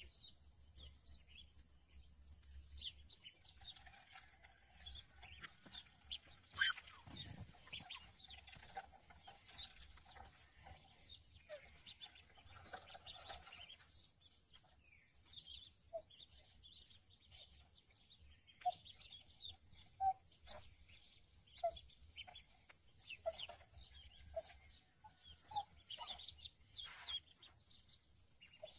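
A brood of ducklings peeping as they forage: many short, high cheeps scattered throughout, with a few lower, short calls in the second half. A single sharp click sounds about six and a half seconds in.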